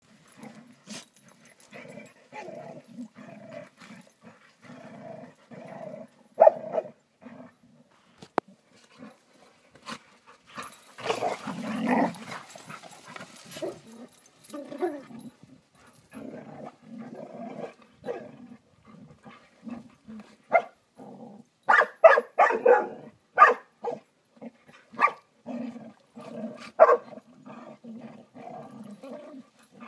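Several dogs play-fighting, with rough growling throughout, a noisier scuffle partway through, and a cluster of louder, sharper barks in the last third.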